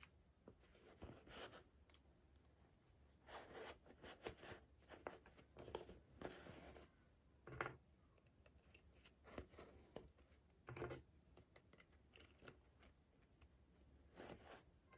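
Quiet, scattered rustles, crinkles and small clicks of toy packaging being handled and opened by hand, with short pauses between them.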